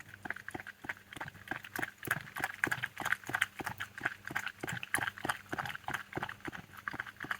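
Red fox lapping water from a small cup: a quick, even run of wet clicks, about four or five a second.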